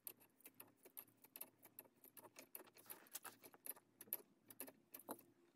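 Near silence with faint, irregular small clicks and taps of a chrome T-valve and its fittings being handled and fitted together by hand.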